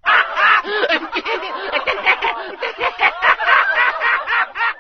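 Laughter sound effect: rapid, high-pitched laughing that starts suddenly and keeps going in quick bursts.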